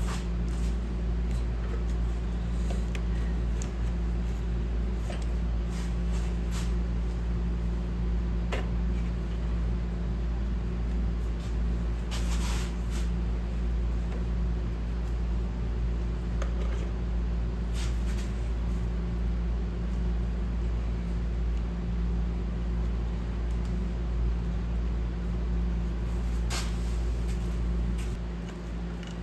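Steady low mechanical hum, like a running fan or motor, with a few short clicks and clunks of parts and tools being handled in an engine bay; the hum drops off near the end.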